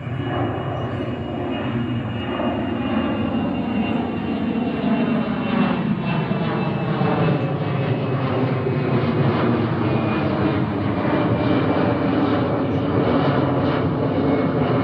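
Jet airliner's engines at takeoff thrust, a dense steady noise with a thin high fan whine, growing louder over the first few seconds and then holding strong as the plane passes.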